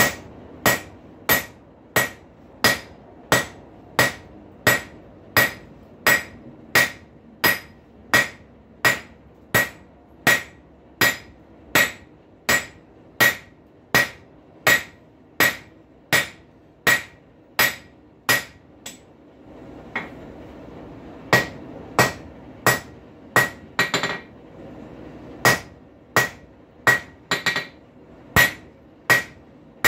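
Hand hammer striking a hot rail spike on an anvil, flattening out the spike's head: steady blows about one and a half a second, each with a bright ringing note. The blows pause briefly about twenty seconds in, then carry on.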